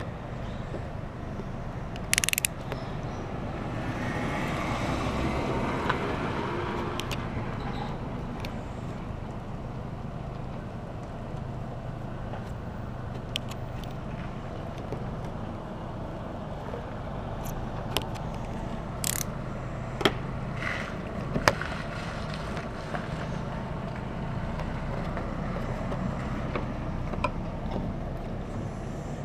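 Hand tools working an emblem off a truck body: a spell of scraping and a scatter of sharp clicks and taps, the loudest about two seconds in and a cluster about twenty seconds in, over a steady low hum.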